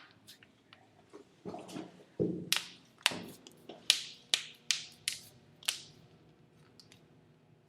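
Knuckles cracking: a dozen or so sharp pops and cracks in quick succession over about four seconds.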